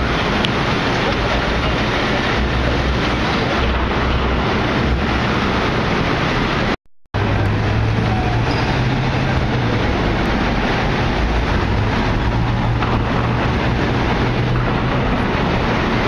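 City street traffic noise with wind rumbling on the microphone. It breaks off for a moment about seven seconds in, and after that a steady low engine hum joins as cars pass.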